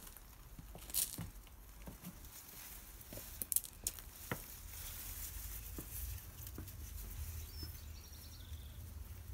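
Scattered light crackles and rustling of long plant leaves brushing and shifting over the backs of two English Bull Terriers as they stand trancing under the bush, over a low steady rumble.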